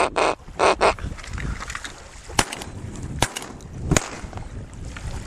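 Three sharp shotgun shots less than a second apart, fired at a passing duck that is missed, over low wind rumble on the microphone. Two short hissing rushes come right at the start.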